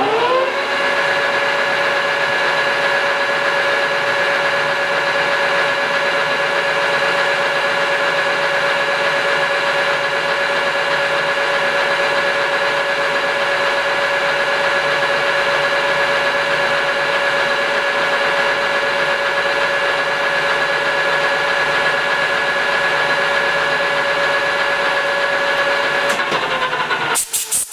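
Metal lathe spinning up, then running steadily with a high whine while taking another light boring pass inside a shaft bore, then spinning down and stopping near the end.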